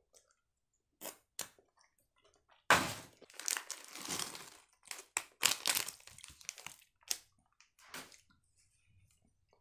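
A few crunchy chewing sounds, then, about three seconds in, the crackle of a plastic bag of croutons being opened and shaken out into a paper salad bowl, with bursts of crinkling over the next few seconds.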